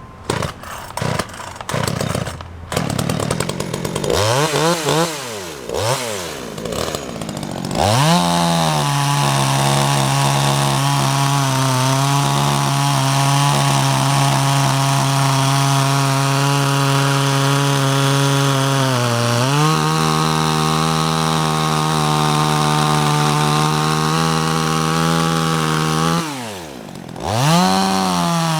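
Cheap Chinese 12-inch two-stroke chainsaw: a few seconds of short irregular bursts, then revving up and down. It then runs steadily at high revs under load as it cuts through wood. Near the end the engine note drops off briefly and revs back up.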